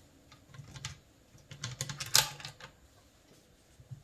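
Small metal rifle parts of a Rossi 92 lever-action clicking and clattering as they are handled and fitted together, with a quick cluster of sharp clicks in the middle and the loudest click about two seconds in.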